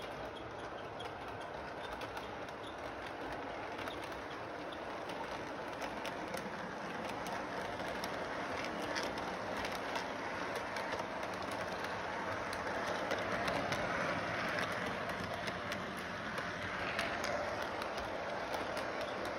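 Model electric train running on its track: a steady motor hum with wheels clicking over the rail joints, growing louder as the cars pass close by.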